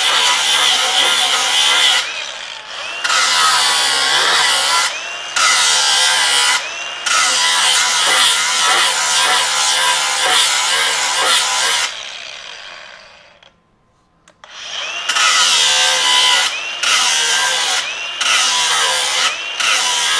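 Hercules HCB61P 20V brushless angle grinder with a ceramic disc grinding a bevel into the edge of quarter-inch steel plate, in several passes with short breaks between them. About twelve seconds in the grinder is let off and winds down to near silence, then starts again and grinding resumes.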